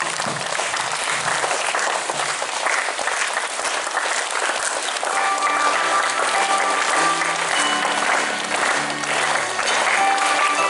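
A crowd of schoolchildren clapping steadily. About five seconds in, recorded music from a loudspeaker comes in and plays under the applause.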